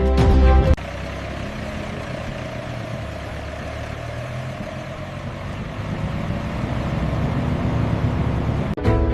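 A heavy engine runs steadily with a low rumble, growing a little louder in the second half. Background music cuts off shortly after the start and returns just before the end.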